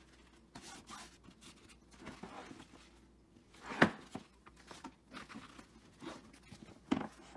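Nylon fabric of a Milwaukee PACKOUT 15-inch tool bag rustling as its top flaps and handles are handled, with two sharper, louder sounds: one about four seconds in and a smaller one near the end.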